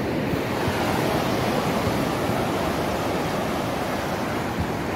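Ocean surf breaking on a sandy beach: a steady wash of waves, with wind buffeting the microphone.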